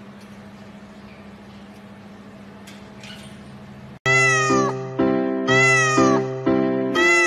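Cat meows set to music: loud, repeated meows, each with a rising-then-falling pitch, about one a second over a steady musical backing. They begin suddenly about four seconds in, after a low steady background hum.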